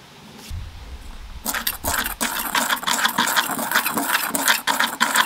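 Small wire whisk stirring dry ground spices in an enamelled bowl: rapid, continuous scratching and rattling of the wires against the bowl, starting about a second and a half in.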